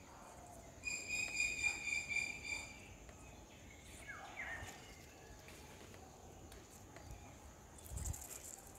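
A high, steady buzzing trill from an insect, lasting about two seconds, then a faint short falling chirp, and a brief rustle near the end.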